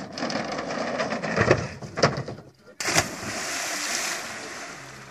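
BMX bike rolling along a floating pontoon with a couple of sharp knocks, then, about three seconds in, a big splash as rider and bike plunge into the river, the rush of water fading over about a second and a half.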